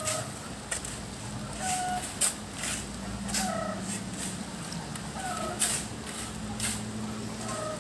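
Hand shovels scraping and digging into a heap of river sand, with several sharp scrapes as loads are thrown into a dump truck's bed. A chicken clucks a few times.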